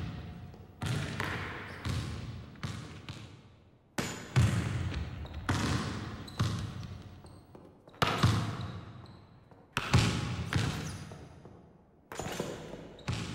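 A basketball being dribbled and shot, bouncing on the hardwood floor of a large empty gym at uneven intervals. Each bang rings on with a long echo, and a shot hits the backboard near the end.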